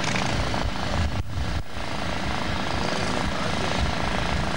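Off-road competition car's engine running hard at high revs, a steady mechanical din across the track, cutting out briefly twice a little over a second in.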